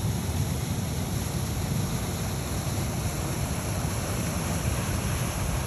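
Wind buffeting the microphone, heard as an uneven low rumble over a steady hiss.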